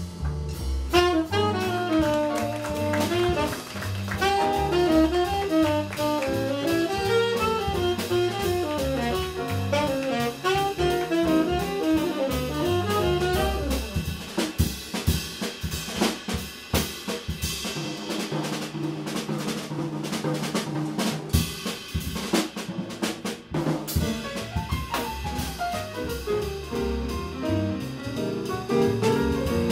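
Live jazz combo playing a swing tune: saxophone, piano, upright double bass and drum kit. For about ten seconds in the middle the melody and the bass drop back and the drums come to the fore, before the melodic lines return near the end.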